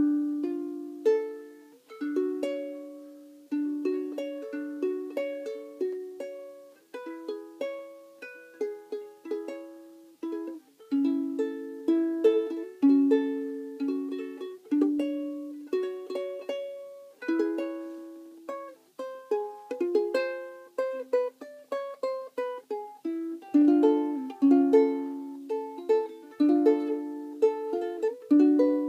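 A ukulele played solo, a tune of plucked single notes and chords that each ring out and fade.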